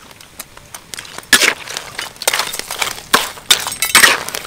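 Metal spatula stirring crabs in a steel wok: shells clattering and the spatula scraping the pan in a run of harsh strokes, starting about a second in.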